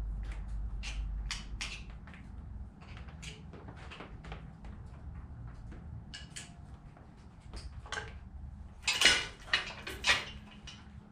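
Tools and metal engine parts clinking and knocking during an engine teardown: a string of short sharp clicks, with a louder cluster of clanks near the end.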